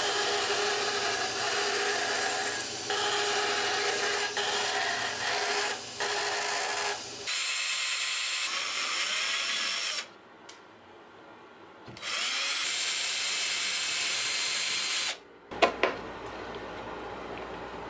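A bandsaw runs steadily while cutting short feet off a turned padauk dowel, the sound dipping briefly with each cut. About seven seconds in, a power drill bores into a padauk foot in two runs of about three seconds each. Two sharp clicks follow near the end.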